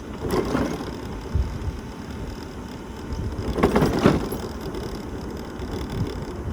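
Wind buffeting the microphone on a moving mobility scooter: a steady low rumble, with two louder gusts, one about half a second in and one near four seconds.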